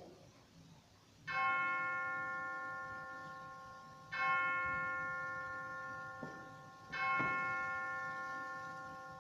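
Altar bell struck three times, about three seconds apart, each stroke ringing on and fading slowly: the sanctus bell marking the elevation of the chalice at the Eucharist.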